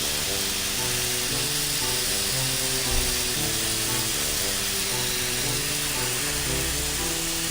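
Background music with a simple stepping melody, over a steady hiss of water spraying from a garden hose.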